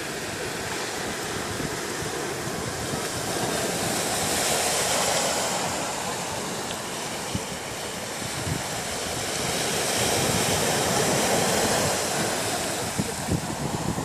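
Small ocean waves breaking and washing up a sandy beach in a steady rushing hiss, swelling about four seconds in and again around ten seconds as each wave runs up the sand.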